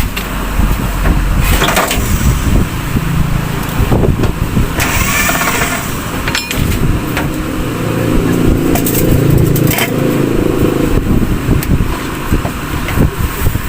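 Cordless drill-driver running in short spells as it backs screws out of a microwave oven's metal casing, with clicks and knocks of metal and tools in between.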